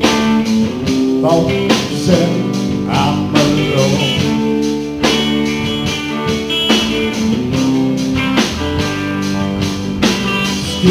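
Live blues band playing: electric guitars and a harmonica played into a microphone, over a steady drum beat.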